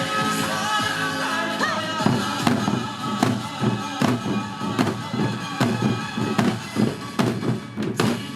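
Janggu hourglass drums struck in unison over recorded music; from about two seconds in, loud drum strokes land on the beat, a little under one a second, and the music stops near the end.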